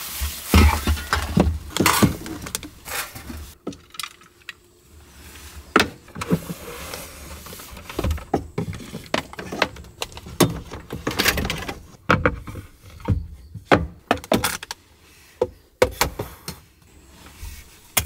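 Things being handled on a wooden storage shelf: irregular knocks, clinks and rattles as thin metal shelf bars and containers are taken out and moved about, with rustling in between.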